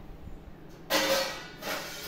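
Stainless steel kitchen plates clattering as one is handled, with a brief metallic ring: a loud clatter about a second in and a smaller one near the end.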